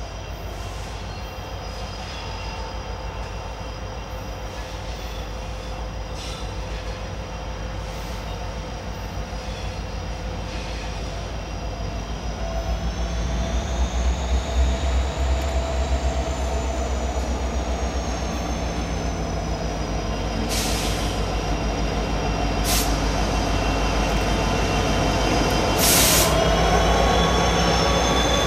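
Freight train led by two EMD GP60 locomotives with two-stroke V16 diesels, approaching on curved track: the engines rumble, growing louder, under a steady high wheel squeal that wavers in pitch. A few short harsh bursts of noise come in the last several seconds.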